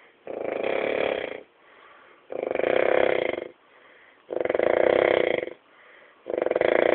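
Snoring: loud, rattling snores, one about every two seconds and each lasting a little over a second, with a quiet breath between them.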